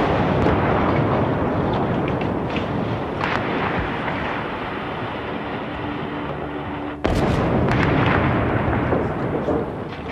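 Artillery shelling: two heavy shell blasts, one at the start and another about seven seconds in. Each rumbles on and fades over several seconds, with a few short sharp cracks in between.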